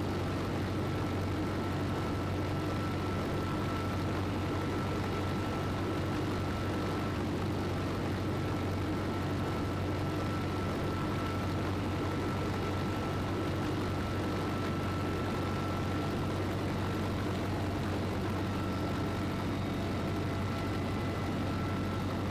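CH-53E Super Stallion helicopter in flight, heard from inside the cabin with the rear ramp open: a steady, loud drone of rotor and engines over rushing wind, with a constant high whine.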